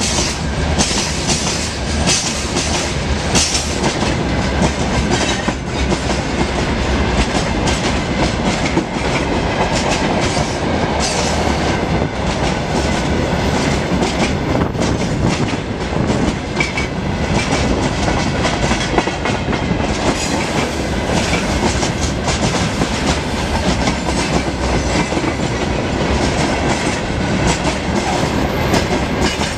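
Freight train rolling past, its wagon wheels clicking over the rail joints without a break.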